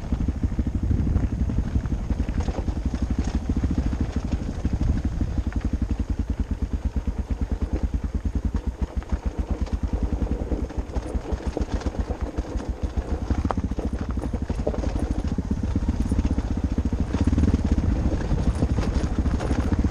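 Motorcycle engine chugging along at low revs, its firing pulses an even, rapid beat. It eases off around the middle and pulls harder again near the end.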